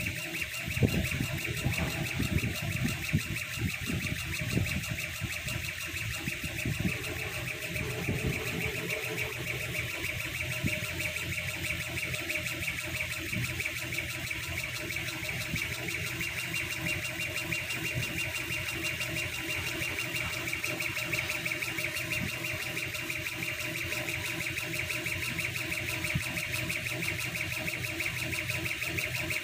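A 1610 CO2 laser cutting machine at work on MDF: the laser head's stepper-driven gantry stuttering through quick engraving moves over a steady hiss and hum. The moves are busiest and most uneven in the first ten seconds or so, then settle into an even run.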